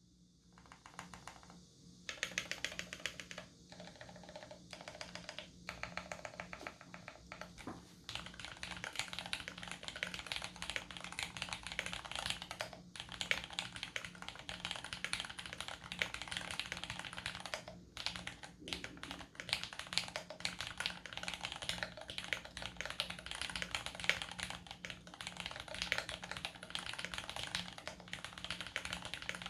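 Archon DX2 mechanical keyboard with lubed Cherry MX vintage brown switches on an aluminium plate and GMK keycaps, typed on fast and continuously with a few brief pauses. The keystrokes get fuller and louder about eight seconds in.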